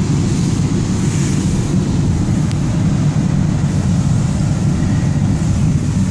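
Heavy rain pouring down on a car, with tyres running through water on a flooded road, heard from inside the car as a steady, deep rush.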